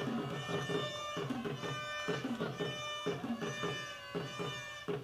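Instrumental music with a steady beat, about two notes a second.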